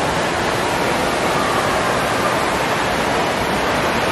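Steady rush of water pouring and spraying from a water play structure.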